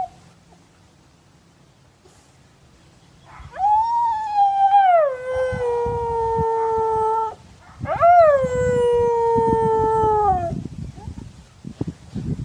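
Siberian husky howling twice in reply to a dog barking down the street. The first howl rises, then slides down and holds a lower note; the second starts high and falls away.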